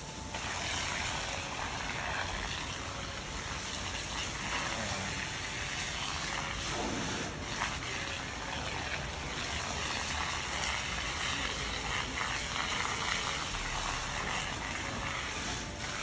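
Fire hose spraying water onto a burning fire, a steady rushing hiss.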